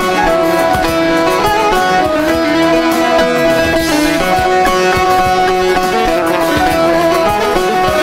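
Instrumental passage of a Turkish folk song (türkü): a plucked-string melody over accompaniment, with no singing.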